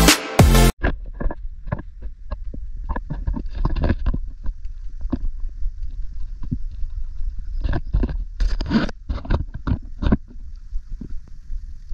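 Electronic intro music cuts off in the first second. After that, wind buffets a handheld action camera's microphone in a low, steady rumble, with irregular knocks and scuffs from handling the camera and walking on a paved path.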